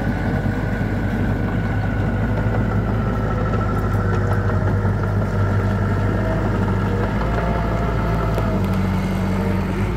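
Small crawler bulldozer's diesel engine running steadily under load as the blade pushes soil, with a thin high whine over the engine note.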